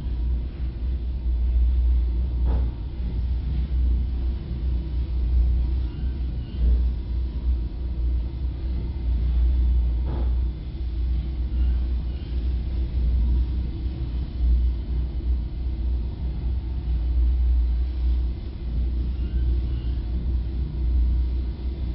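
A loud, uneven low rumble throughout, with faint knocks about two and a half seconds in and again about ten seconds in.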